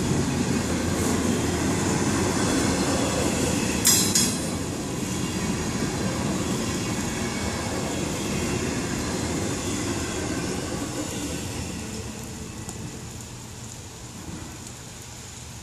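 Norfolk Southern double-stack container train rolling slowly past, its wheels rumbling on the rails, with one sharp metallic clank about four seconds in. The rumble fades away as the last car passes.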